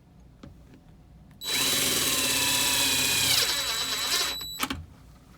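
Power drill driving a flathead screw to fasten a lock cylinder, running for about three seconds, its whine dropping in pitch as the screw seats and the motor slows, then stopping with a couple of clicks.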